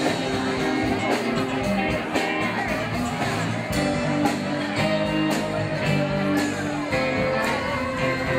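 A live band playing rock music: electric guitar, keyboard and drums keeping a steady beat.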